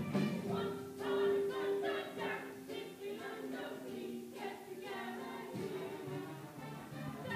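The cast of a stage musical singing together as a chorus, with musical accompaniment.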